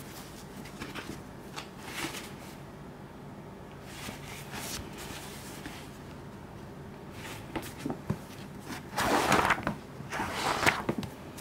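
A large paperback book handled in gloved hands: soft scattered rustles and taps of its cover and pages, then two louder paper rustles near the end as the cover is flexed.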